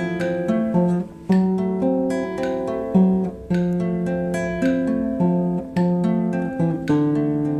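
Background music on acoustic guitar: chords and notes plucked or strummed about once a second, each struck sharply and left to ring.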